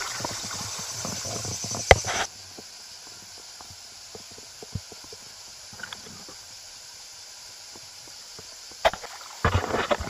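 Someone wading through a shallow river: water splashing and gurgling with a steady rush that drops away about two seconds in, then scattered small splashes and knocks, and a cluster of louder splashes near the end.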